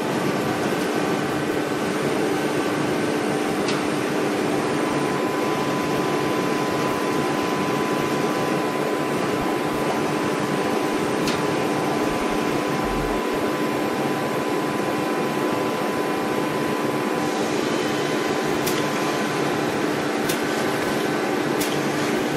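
Steady electrical and mechanical hum of a powered-up Mazak Multiplex 4200 CNC lathe, with a faint steady whine through the middle and a few light clicks.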